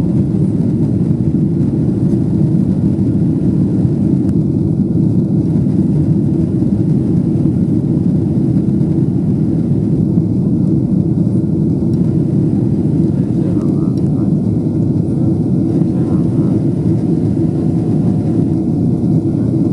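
Steady low cabin roar of a Boeing 777-300ER climbing after takeoff: its GE90-115B turbofan engines and the rush of air over the fuselage, heard from inside the passenger cabin.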